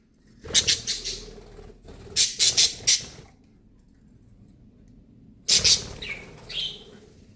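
Pet budgies calling in three short, harsh bursts about half a second, two seconds and five and a half seconds in, with a brief chirp shortly after the last.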